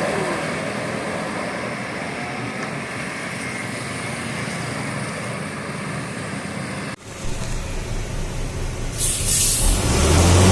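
Large bus engine and road noise running steadily. After an abrupt cut about seven seconds in, a bus engine runs close by, and near the end there is a short hiss of air brakes.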